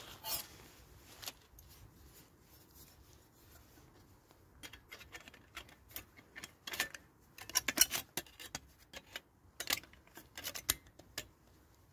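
Thin metal panels of an Onetigris Rubicoid flat-pack wood stove being slotted together by hand: light metallic clicks and scrapes, a few at first, then many in quick clusters in the second half.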